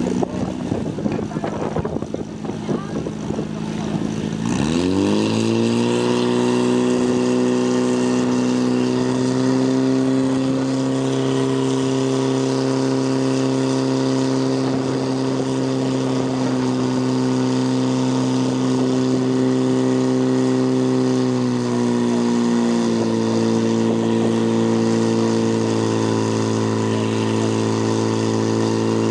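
Portable fire pump engine revving hard about four seconds in and then held at high speed, pumping water through the hose lines to the jets. Its pitch sags briefly past the middle and comes back up.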